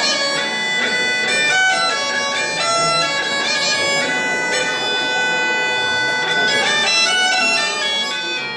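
Bagpipe playing a fast, ornamented melody over a steady drone.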